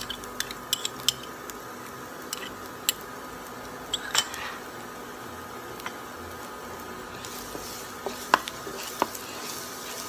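Chopped garlic sizzling in hot oil in a nonstick wok, with scattered clicks and taps of a metal spoon and a wooden spatula against the pan. The sizzle grows stronger over the last few seconds.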